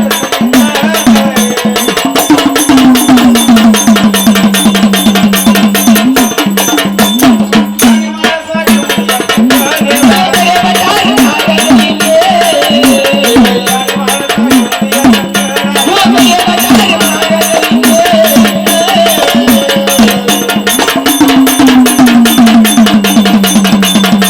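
Marathi folk devotional music: a singer's ornamented, gliding voice over a steady held drone and fast, even percussion beats.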